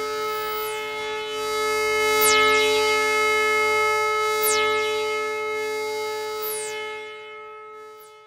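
Eurorack modular synthesizer drone: a sustained chord of steady tones, with a high falling sweep about every two seconds. It fades out near the end.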